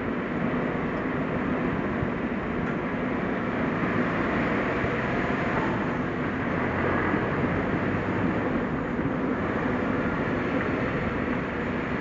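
Suzuki Jimny being driven: steady engine and road noise with no sharp events.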